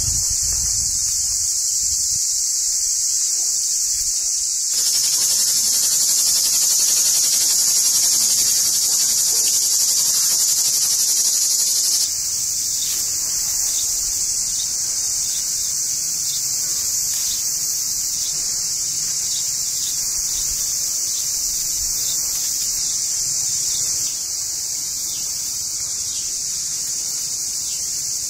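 Dense, steady high-pitched chorus of insects, its loudness shifting a few times, louder from about five seconds in and dropping back at about twelve seconds.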